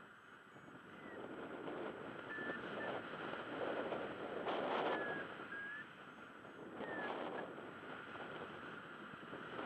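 Wind rushing over the microphone in paraglider flight, swelling loudest about halfway through. A few brief high beeps from a flight variometer come through it, some of them dropping slightly in pitch.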